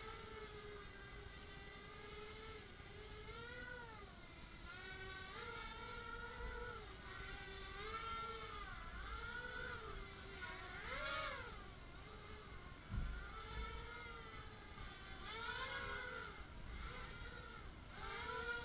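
Hobbyking Color 250 quadcopter's four brushless motors and propellers whining in flight, the pitch rising and falling over and over as the throttle changes, with a sharp climb and drop in pitch about two-thirds of the way through. A brief low thump sounds shortly after.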